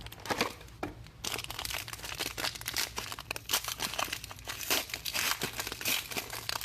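Plastic card packaging crinkling and tearing as a trading-card box or pack is opened, a dense run of crackles starting about a second in.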